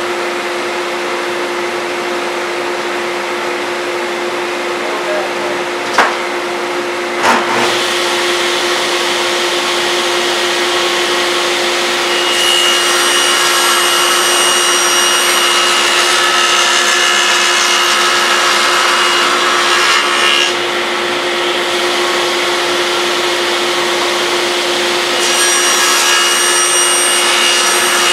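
Shop dust collector running with a steady hum throughout; after two clicks about six and seven seconds in, a table saw is running, and its blade cuts along the side of a maple box with a higher whine from about twelve to twenty seconds in and again from about twenty-five seconds. The blade is ripping the lid off the assembled box, set just short of cutting all the way through.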